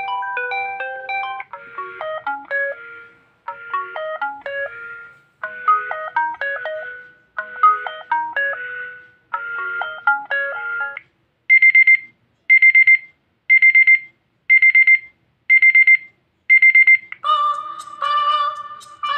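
LG G3 Stylus smartphone alarm tones playing one after another. First comes a short melodic loop that repeats about every two seconds. Then a beeping alarm plays six quick clusters of high beeps, about one a second, and near the end another melodic tone begins.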